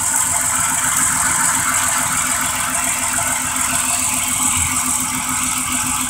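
Chrysler 2.7-litre V6 idling rough with a cylinder 6 misfire, running steadily. The idle does not change as the plug is pulled off the cylinder 6 ignition coil, which points to that coil not firing.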